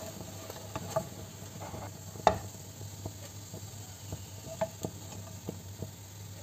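Cutlets sizzling softly in a little oil in a nonstick frying pan, with a slotted spatula scraping and tapping against the pan as they are lifted out: scattered clicks, the sharpest a little over two seconds in.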